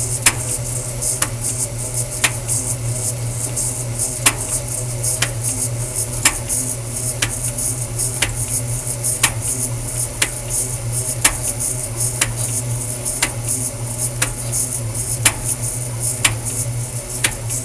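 Brastemp Luxo washing machine agitating: a steady low motor hum with a sharp click or knock about once a second. This is the abnormal noise that started only during agitation.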